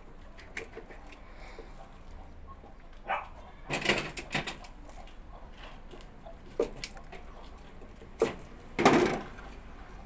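Knocks, clicks and clatter of hands and tools working on a washing machine's drain pump housing. There are a few sharp clicks and two louder rattling bursts, about four seconds in and again near the end.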